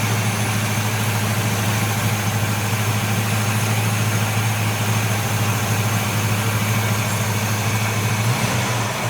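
Big-block Buick V8 idling steadily under the hood during an ignition timing check, with the distributor's vacuum advance just reconnected. Near the end the engine note rises briefly.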